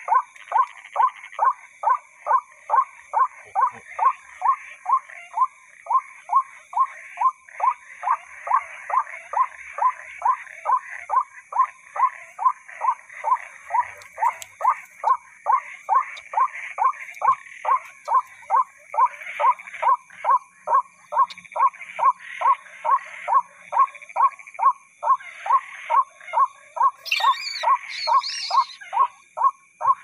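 White-breasted waterhen (ruak-ruak) call played as a lure through an amplifier and horn loudspeaker. The same harsh note repeats at an even pace of about two a second, over a steady high-pitched background chirring.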